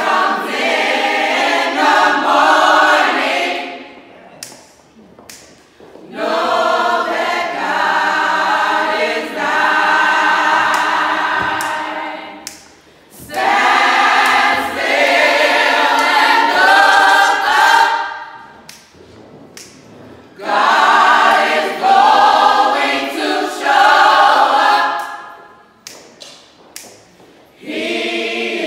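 A small mixed group of men's and women's voices singing a slow gospel song a cappella in harmony, without instruments. The singing comes in long phrases of about four to six seconds with short pauses between.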